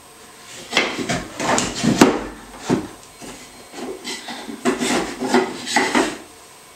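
Wooden top bars of a top bar hive knocking and scraping against one another and the hive body as they are shifted and lifted out, in a run of irregular wooden knocks.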